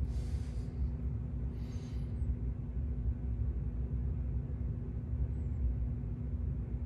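Steady low background hum and rumble with a constant low tone, broken by two brief soft hisses in the first two seconds.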